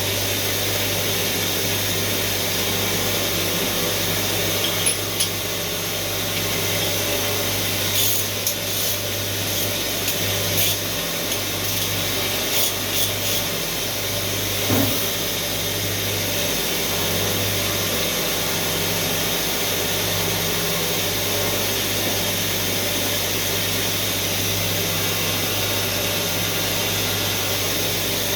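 Steady machine hum from a running CNC machine. A few light clicks and knocks come in the middle of it.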